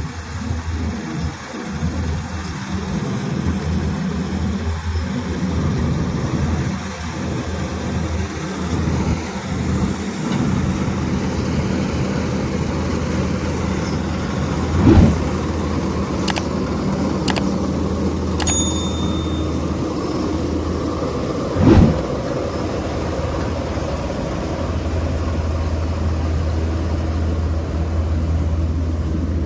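Engine of a rice harvesting machine running steadily with a low drone, with two short loud knocks in the second half and a few faint clicks between them.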